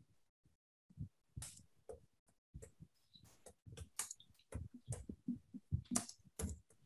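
Faint, irregular clicks and soft knocks, several a second, getting busier in the second half.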